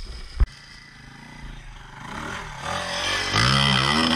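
Dirt bike engine revving hard under load on a steep hill climb, growing louder from about two seconds in, its pitch rising and falling with the throttle. A short sharp knock sounds about half a second in.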